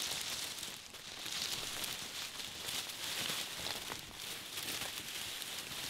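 A whitetail buck's carcass being dragged by its antlers over dry leaf litter, with footsteps crunching through the leaves: a steady rustling with many small crackles.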